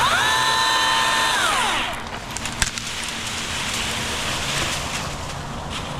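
Battery-electric chainsaw spinning up with a rising whine, running at a steady high pitch for about a second and a half, then winding down. A sharp snap follows about 2.6 s in, over a steady hiss.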